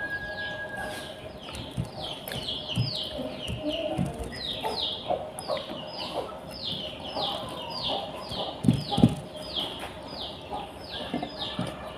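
Chicks peeping: a steady run of short, high, falling peeps, about three a second and overlapping, as from several birds. A couple of soft knocks near the end stand out above them.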